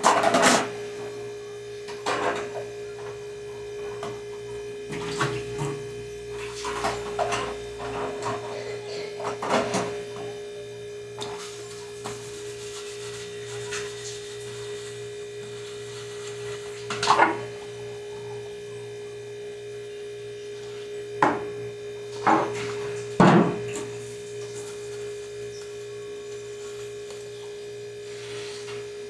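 Dishes and plastic containers handled while washing up at a kitchen sink: scattered clinks and knocks, a few louder ones in the second half, over a steady electrical hum.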